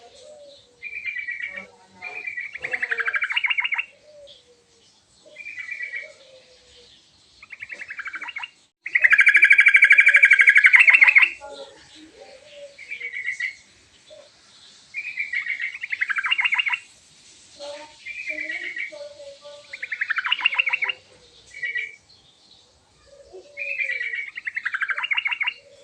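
Yellow-vented bulbul calling in repeated short phrases of fast chattering notes, with one longer, louder run about nine seconds in.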